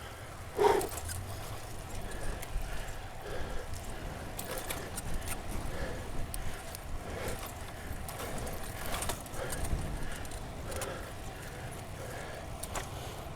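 A cyclist breathing hard in short, repeated gasps while sprinting on the bike, over a steady low rumble. The gasping opens with one loud, sharp exhale about a second in.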